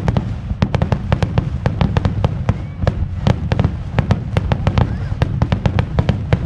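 Aerial firework shells bursting in a rapid-fire barrage: several sharp bangs a second over a continuous low rumble of explosions.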